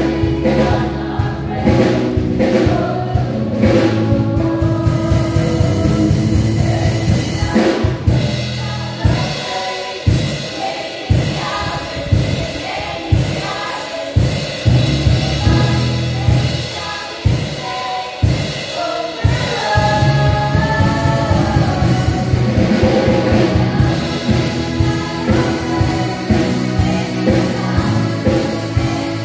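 Youth choir of young men and women singing a gospel song together, over instrumental accompaniment with a steady beat.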